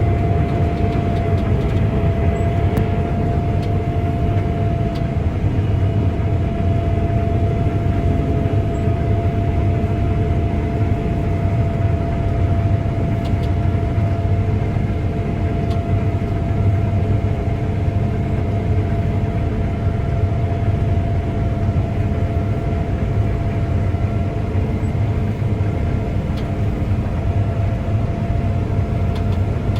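Combine harvester running steadily: a heavy low engine rumble with a constant whine above it.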